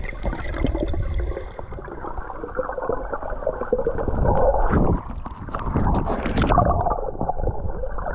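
Muffled underwater sound through a submerged camera: water rushing and bubbling with crackles, swelling louder about four and six seconds in.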